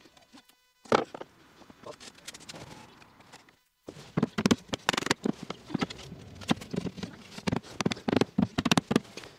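Wooden panels knocking and clattering against a wooden frame as they are worked into its grooves by hand. There is one sharp knock about a second in, then a quick irregular run of knocks and taps through the second half.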